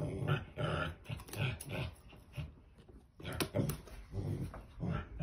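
An excited dog vocalizing in about ten short bursts, with a few sharp clicks of scissors working on a cardboard box.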